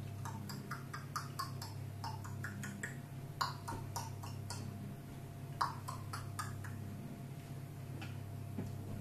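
Irregular soft clicks and smacks, a few a second, from a ring-tailed lemur grooming, mouthing and licking at close range, over a steady low room hum.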